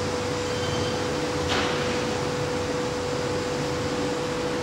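Steady mechanical hum with a constant mid-pitched whine, and a brief soft whoosh about a second and a half in.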